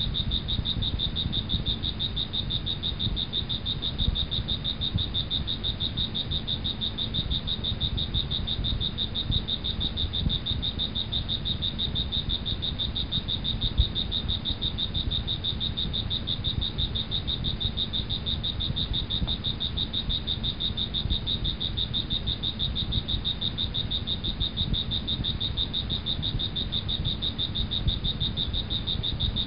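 Steady night chorus of insects and frogs: a continuous high trill that never breaks, over a low rumble.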